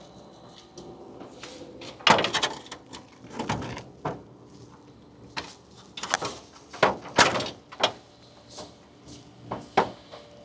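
A series of irregular knocks, clatters and bangs, about a dozen spread unevenly, the loudest about two seconds in and around seven seconds in.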